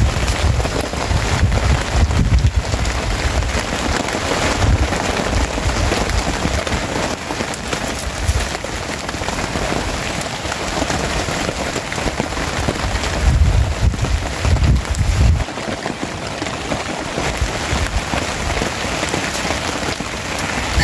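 Steady rain pattering down, with a few low rumbles now and then.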